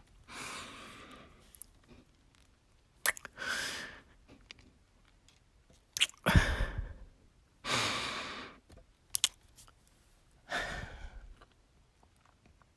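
A woman's close-up sighs and breaths, five in all, the loudest about halfway through. Between them come a few short kisses.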